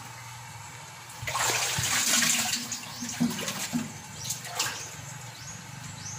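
Water gushing and splashing for about two seconds, starting a little over a second in, followed by a few knocks. It comes from a hand-dug well that is taking in a lot of water.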